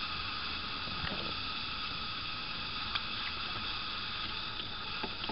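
Steady background hiss with a few faint short clicks.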